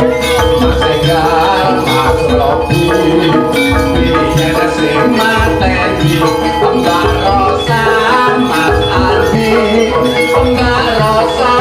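Loud live jaranan (kuda lumping) music from a Javanese ensemble: steady drum beats under dense, ringing pitched percussion.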